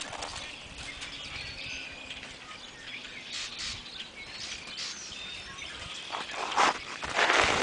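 Small birds chirping faintly, then footsteps crunching on crusty snow near the end.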